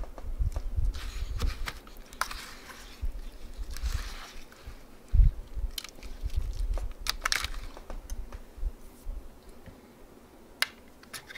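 A spoon stirring and scraping a thick mix of bird seed and melted lard in a pan, with scattered clicks, crunchy scrapes and low bumps, and one louder thump about five seconds in.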